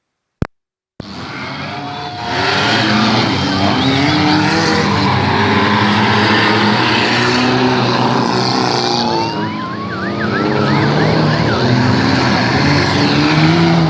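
Several demolition derby cars' engines running and revving together, with revs rising and falling. After a second of silence and a short click, the engines come in and get loud about two seconds in.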